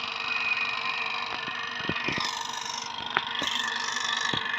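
Steady drone of a running water pump set, with about eight light clicks and knocks scattered through it as a small fitting on the pump is handled and screwed on.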